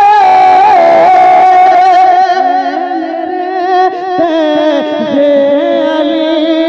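A man singing a naat into a microphone, drawing out a long high note with vibrato. About two seconds in he drops lower and carries on with a winding, ornamented melody.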